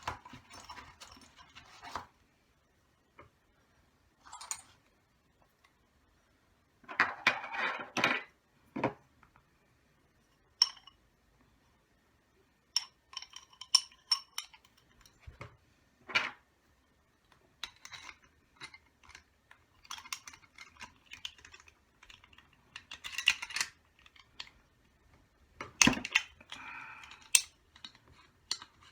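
Small metal parts and tools clinking and clattering on a work surface as a model nitro engine is taken apart: scattered clicks and short rattles, with a few louder bursts of clatter.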